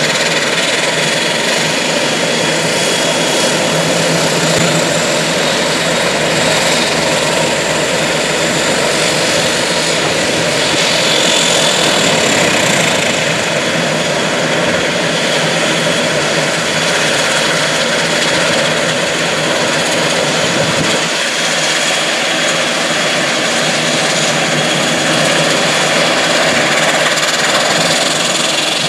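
Embraer 120 Brasilia's twin Pratt & Whitney PW118 turboprops running at taxi power: a loud, steady turbine whine over the drone of the spinning propellers.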